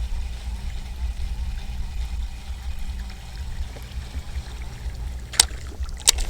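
Strong wind rumbling on the microphone over a faint water-like hiss, with two sharp clicks near the end.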